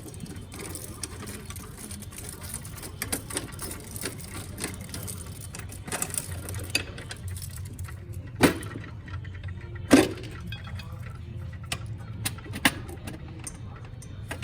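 Scattered clicks and knocks over a steady low hum, with two louder knocks in the second half.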